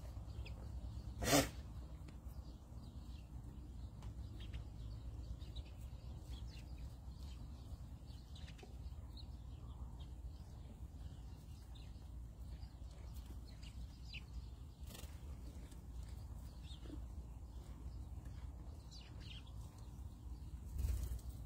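Alpacas eating grain off the ground close by: scattered small crunching and nibbling sounds over a steady low rumble. One short loud noise about a second in and a smaller one near the end.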